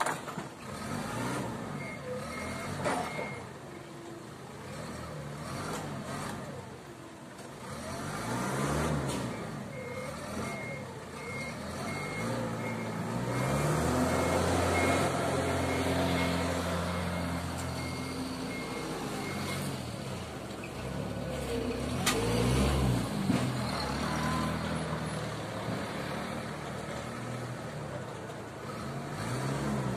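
Forklift engine running and revving up and down as the paper-roll clamp machine moves and lifts, with its reversing beeper pulsing about twice a second, briefly near the start and then for about ten seconds from roughly 9 seconds in.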